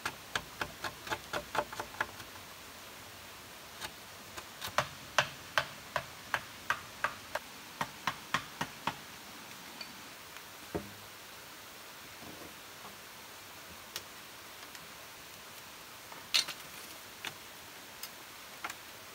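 Light, sharp taps of a knife blade on bamboo. A quick run of about five taps a second comes first, then an even series of about one and a half taps a second for several seconds, then a few scattered knocks and clicks.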